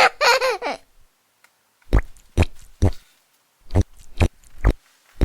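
Slime being squeezed and poked, making sharp wet squelching pops in groups of three about half a second apart. A short voice-like sound comes first, in the opening second.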